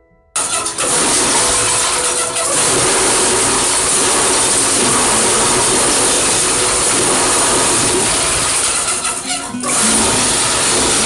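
Concrete block (batako) press machine running: a loud, steady mechanical noise that starts abruptly just under half a second in, with brief dips about two seconds in and near the end.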